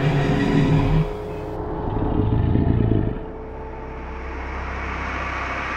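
Car engine sound effect: two revving surges in the first three seconds, then a steadier rushing drone.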